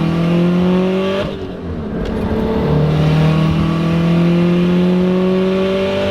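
Turbocharged Subaru STI flat-four engine accelerating hard under load. The pitch climbs, dips briefly about a second in, then climbs steadily for the rest of the pull. It runs cleanly with no misfire.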